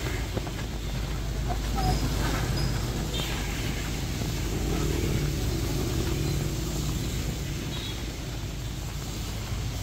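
Heavy rain falling on a city street, a steady hiss, with the low rumble of motor traffic passing.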